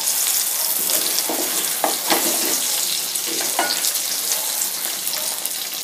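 Taro pieces sizzling in hot mustard oil in a frying pan, a steady frying hiss, with scattered knocks and scrapes of a wooden spatula stirring and turning them.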